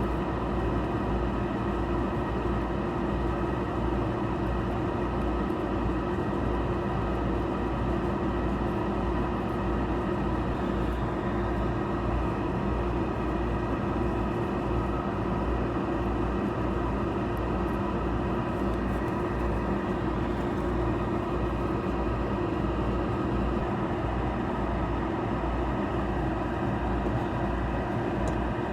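Hot air rework station's blower fan running steadily, a constant rushing noise with a low hum.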